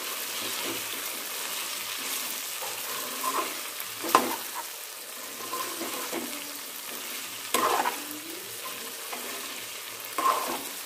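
Goose meat and potatoes frying in masala without water in a stainless steel kadai, giving a steady sizzle. A metal spatula stirs the pan, scraping and knocking sharply against the steel about three times.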